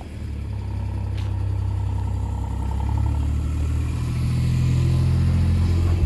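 Farm utility vehicle's engine running as it tows a small livestock trailer across the yard, a steady low hum that grows gradually louder as it draws near.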